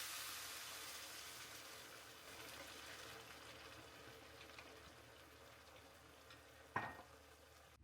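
Food sizzling in a pan as a soft, high hiss that slowly fades away. A single short knock comes near the end.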